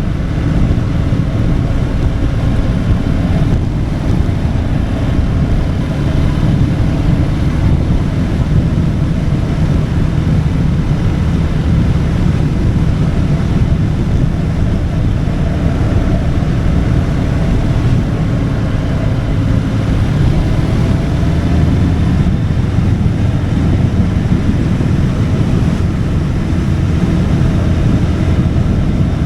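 Motorcycle riding at a steady speed: wind rushing over the microphone, with the engine's drone underneath.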